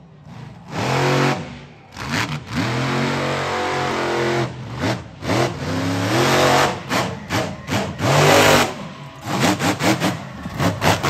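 Monster truck engine revving hard in repeated bursts, its pitch climbing and falling with the throttle. Near the end it turns into quick, choppy throttle blips as the truck goes over a jump.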